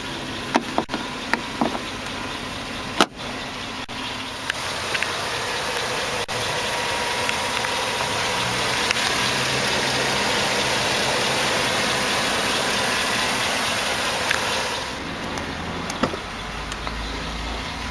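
A few metal clicks and one sharp thump about three seconds in as the Hummer H2's hood hinge and strap are handled. Then a steady rushing noise for about ten seconds that stops abruptly. Near the end, the click of the exterior door handle being pulled.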